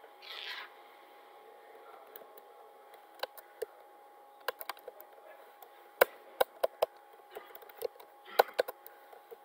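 Computer keyboard keystrokes: irregular sharp clicks in small runs, over a faint steady hum, with a brief hiss near the start.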